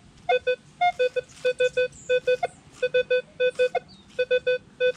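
Minelab Equinox 800 metal detector giving its target tone as the coil is swept back and forth over a buried target: clusters of short, quick electronic beeps, mostly at one mid pitch with an occasional higher beep, repeating with each pass. The display holds a target ID of about 19.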